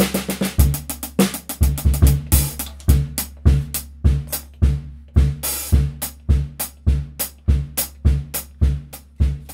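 Drum kit played in a steady groove with sticks: bass drum thuds on the beat under snare strokes, some of them cross-stick clicks with a stick laid across the snare head.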